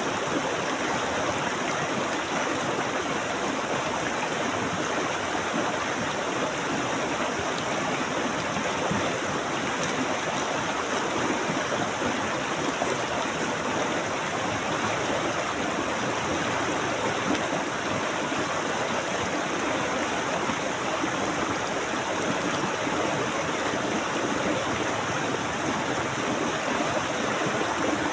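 Stream water flowing and splashing steadily, an even rushing wash with no breaks.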